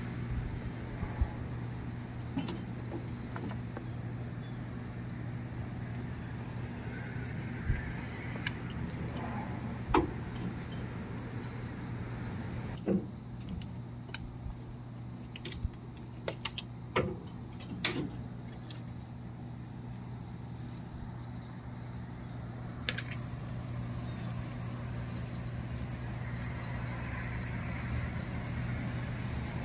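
Outdoor background: a steady, thin high-pitched drone, typical of insects calling, over a steady low hum, with a few scattered faint clicks and taps.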